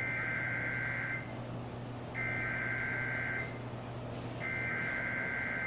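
Emergency Alert System SAME header: three bursts of digital data tones, each a little over a second long with about a second between them, over a faint steady low hum. The header codes the start of a Required Weekly Test.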